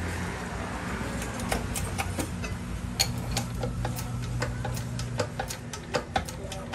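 Hydraulic bottle-jack press forcing a rifling button rod down through an airgun barrel blank: irregular sharp clicks and ticks, several a second, over a steady low hum.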